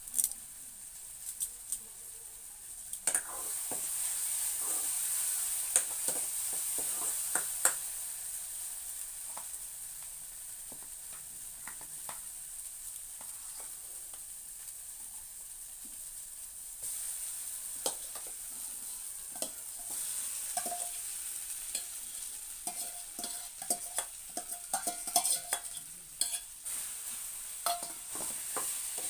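Food sizzling in a hot pan, with a metal spoon stirring and clinking sharply against the pan many times.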